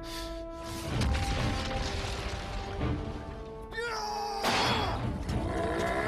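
Dramatic background music under cartoon fight sound effects: sword blows and crashing impacts, with a loud ringing metallic clash about four seconds in.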